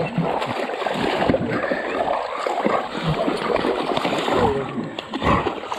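Floodwater splashing and sloshing as dogs and wading hunters move through it, picked up close by a camera strapped to a dog.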